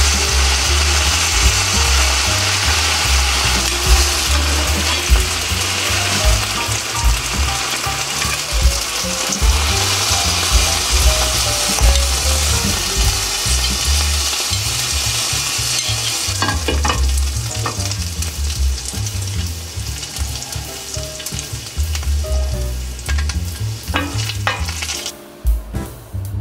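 Halved napa cabbage and bacon sizzling steadily in hot olive oil in a frying pan while roasting to golden brown. In the second half a few sharp knocks and clicks come through, and the sizzle falls away near the end.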